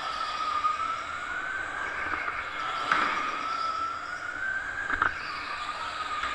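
Electric go-kart's motor whining, its pitch slowly climbing as the kart accelerates and falling back, twice. Two sharp knocks, about three and five seconds in, come where the pitch drops.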